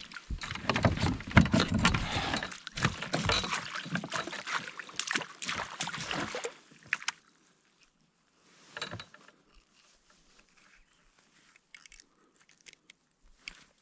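Rustling and clattering of a brook trout being handled and unhooked in a landing net in a canoe, with many sharp clicks and knocks, for about six seconds; then near silence with a few faint clicks and one brief rustle.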